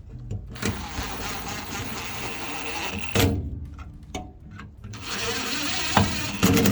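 Power tool running in two bursts, with a sharp knock between them and a few clicks near the end.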